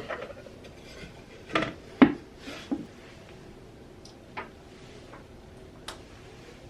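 A few knocks and clatters of hard parts being handled and set down. Three close together, the loudest about two seconds in, then two lighter taps later.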